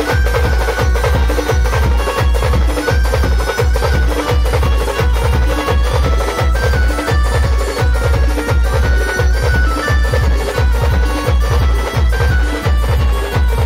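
Live band music at full volume: a fast, even beat on heavy bass drums with a stepping melody line played over it.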